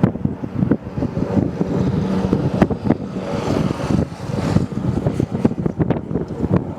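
Airbus H225 helicopter's rotors and turbines running, with heavy wind buffeting on the microphone.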